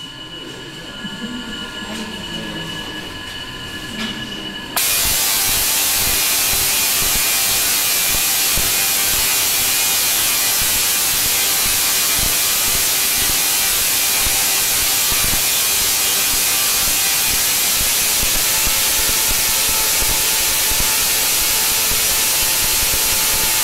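Tesla coil firing: the loud, steady noise of its spark streamers starts suddenly about five seconds in and holds evenly without a break.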